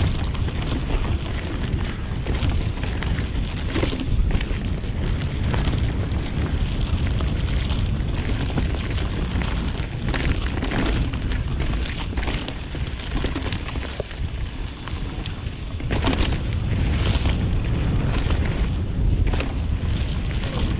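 Wind buffeting an action camera's microphone during a mountain-bike descent on a 2016 Nukeproof Mega 275, with the tyres rumbling over dirt trail and the bike rattling and knocking over bumps.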